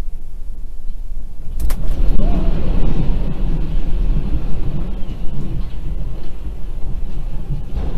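Deep rumbling of the magnitude 6.4 earthquake, picked up by a dashcam inside a parked car. A sharp knock comes about one and a half seconds in, after which the rumble grows louder and fuller.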